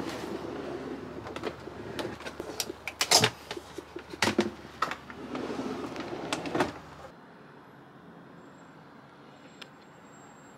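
Clicks and knocks from handling a Cuckoo electric rice cooker, two of them loud near the middle. About seven seconds in they stop, leaving quiet room tone with one faint click.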